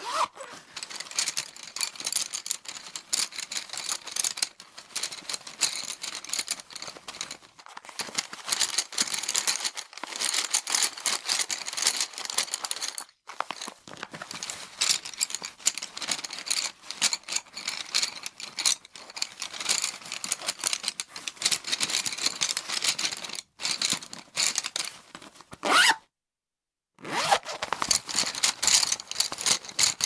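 Hand rummaging through a fabric pencil case full of coloured pencils, the pencils clattering and clicking against one another amid rustling cloth. It goes on in dense bursts, breaks briefly twice, and stops for about a second near the end before starting again.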